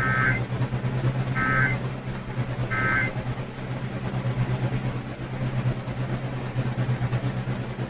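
Emergency Alert System end-of-message data bursts on NOAA Weather Radio: three short, raspy digital tone bursts about a second and a half apart, marking the end of the warning. A steady low hum continues underneath afterwards.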